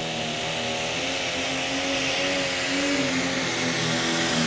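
Turbocharged diesel engine of a Pro Stock pulling tractor running flat out under load while it drags the weight-transfer sled. The engine note wavers slightly, over a loud rushing noise.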